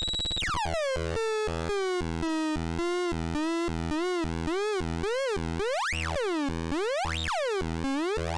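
Two-oscillator drone/noise synthesizer: a buzzy, harmonic-rich tone drops from a high squeal to a low drone about a second in, then wobbles and swoops up and down in pitch, the sweeps growing wider toward the end. Under it a low throb pulses on and off about twice a second.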